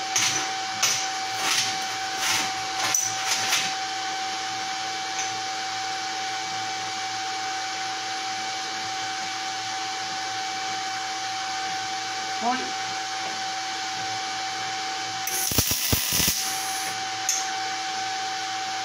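MIG welding arc striking a tack weld between steel angle and flat bar, crackling for about a second near the end. A steady machine hum runs underneath, with a few light clicks near the start.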